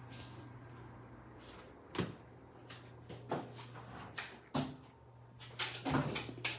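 A string of sharp household knocks and clatters, like a cupboard or door being handled, over a steady low hum.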